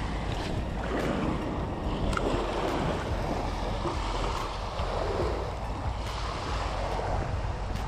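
Small waves washing and lapping onto the shoreline, swelling and ebbing every second or two, with wind rumbling on the microphone.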